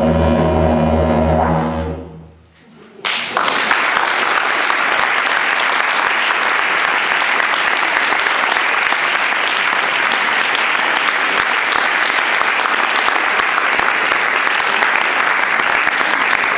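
Didgeridoo playing a low, pulsing drone that fades out about two seconds in. About a second later an audience starts applauding, and the applause carries on steadily.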